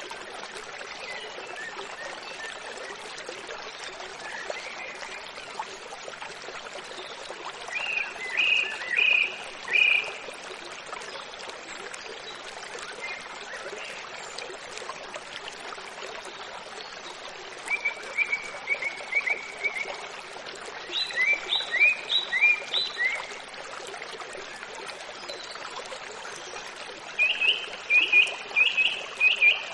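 Steady rush of running water, like a stream, with birds chirping in short bursts every several seconds.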